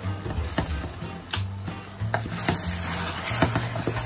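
A wooden spoon stirs chopped vegetables in hot stock in a metal pot, with a steady hiss from the hot pan and repeated knocks of the spoon against the pot's sides.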